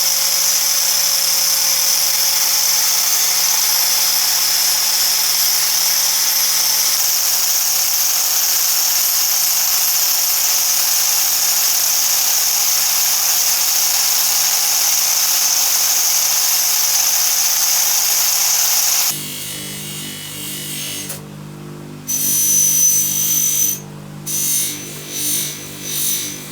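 Small electric power tool running steadily with a strong high hiss. About three-quarters of the way through it cuts off abruptly and background music takes over.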